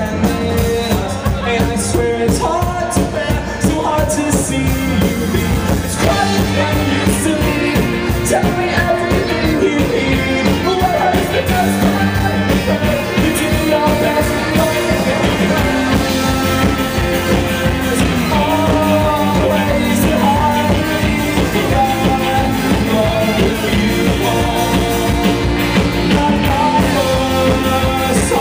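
A live band playing an up-tempo song on accordion, fiddle, upright bass and drums, with a steady beat.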